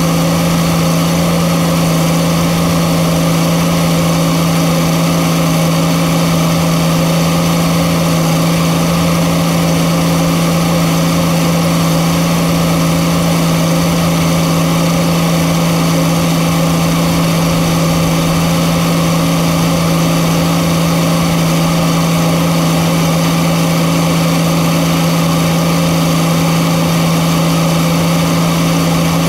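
Diesel engine of a Case crawler dozer running at a constant speed, a steady, unchanging drone.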